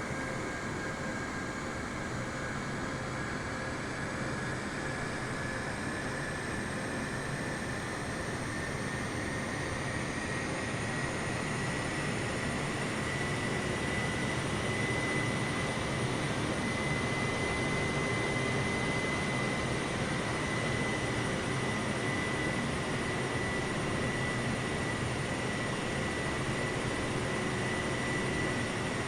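Jet airliner engines running with a steady roar and a high whine that slowly rises in pitch, growing louder through the first half as the engines spool up.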